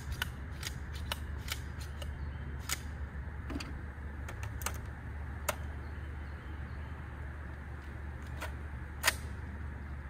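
Scattered small metallic clicks and clacks from handling an AR-15-style pistol, with a sharper clack about nine seconds in. The rifle is having trouble rechambering rounds.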